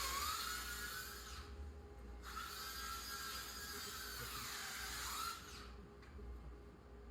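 Power drill running in two runs: it stops about a second and a half in, starts again a second later and stops for good about five and a half seconds in. Its whine dips and rises as the load changes.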